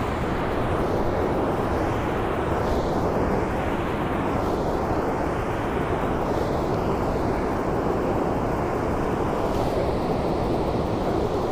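Steady rushing noise of water running through a dam's gates, even throughout with no distinct events.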